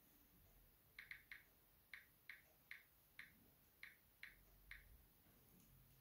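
Faint, short clicks of typing on a smartphone's on-screen keyboard: about ten key presses at an uneven pace, a couple a second, starting about a second in and stopping just before the fifth second.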